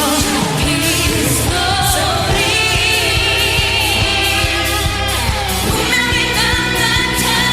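Female vocal group singing a pop song live over a band with a steady drum beat. A high, wavering sung note is held for about two seconds near the middle.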